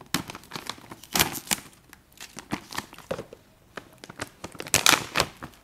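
Foil-lined plastic snack pouch crinkling and tearing as it is pulled open by hand, in irregular bursts of rustling, loudest near the end.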